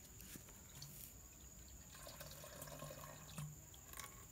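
Faint trickle of water running from an outdoor tap into a garden hose.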